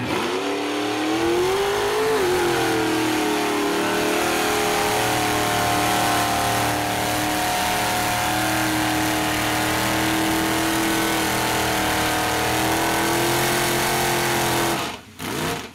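A mud truck's engine at high revs as it drives through a mud bog pit: the pitch climbs over the first two seconds, then holds steady at full throttle, and cuts off suddenly near the end.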